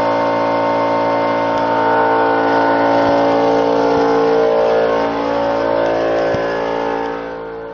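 A car engine running steadily, with a few faint clicks, fading out near the end.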